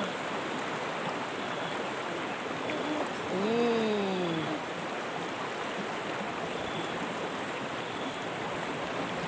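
Steady rush of river water flowing around the rock. About three seconds in, a single voice calls out once, rising then falling in pitch.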